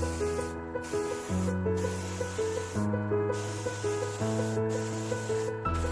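Background music with a steady chord pattern and a repeating short melody, over the hiss of an airbrush spraying green paint, which cuts off briefly several times as the trigger is let go.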